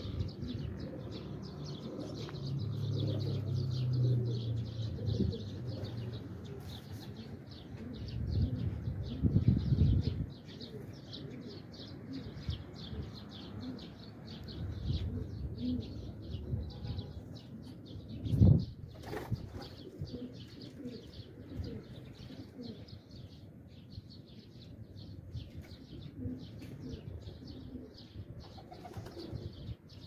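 Domestic pigeons flapping their wings, with pigeons cooing off and on. Louder low thuds come near ten and eighteen seconds in.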